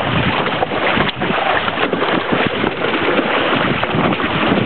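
Wind buffeting the microphone over the steady rush and splash of choppy water along the hull and outrigger float of a small sailing outrigger canoe under way.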